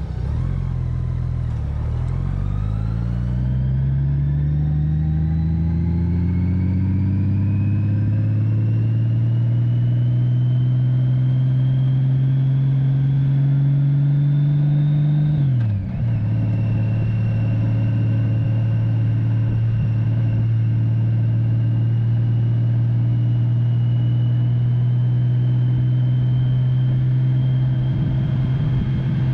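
Touring motorcycle engine accelerating, its pitch rising steadily for about fifteen seconds, then dropping abruptly at a gear change about halfway through, then running at a steady pitch at cruising speed.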